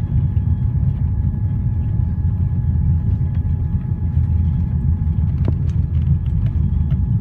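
Steady low rumble inside the cabin of an Airbus A340-300 rolling out on the runway after touchdown: wheels on the runway and engine noise, with a faint steady whine above it.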